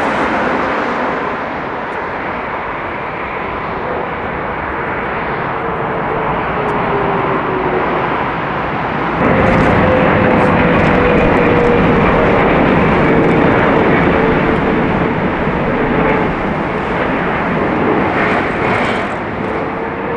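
Heavy jet airliner engines on landing approach: a steady rumble with a whine that slowly falls in pitch as the aircraft passes. About nine seconds in, the sound jumps abruptly louder with a new whine that again slowly falls.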